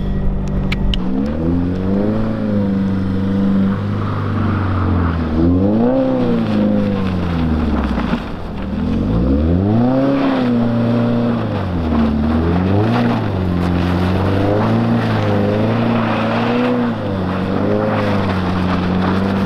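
Subaru WRX's turbocharged flat-four engine revving up and down again and again as the car is slid around in snow, the pitch climbing and dropping several times before settling into a steadier run near the end.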